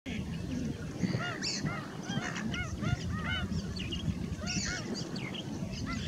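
A group of pied stilts calling: many short nasal yapping notes, each rising then falling in pitch, overlapping several times a second, over a steady low rumble.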